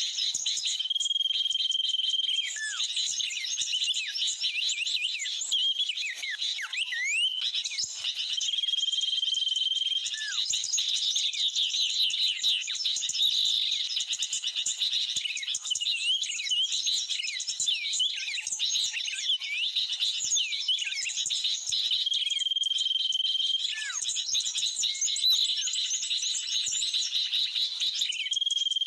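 Bird-trapping lure recording of sooty-headed bulbul (kutilang) calls mixed with small birds' chirps, playing as a dense, unbroken chorus of high chirps and twitters. A steady high whistle of about a second and a half recurs several times, each followed by a short falling note.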